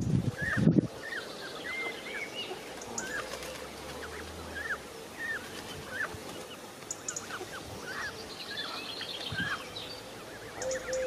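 Egyptian goose goslings peeping: a steady run of short, high, hooked cheeps, about one or two a second. An adult Egyptian goose gives one honk just under a second in.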